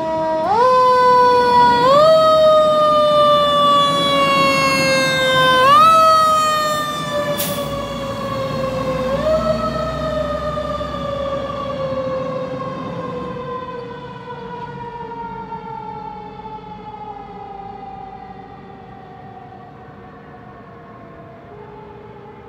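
Fire engine siren: its pitch jumps up in four quick rises, each followed by a slow downward glide, then sinks in one long glide while fading as the truck moves away.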